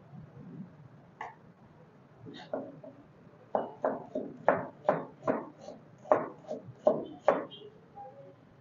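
Kitchen knife chopping an onion on a plastic cutting board: a few scattered taps, then a steady run of about ten chops, roughly two and a half a second, starting about three and a half seconds in.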